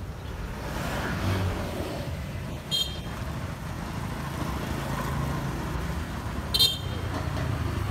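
Street traffic: a steady rumble of motor vehicles, with two short high-pitched chirps about three seconds and six and a half seconds in.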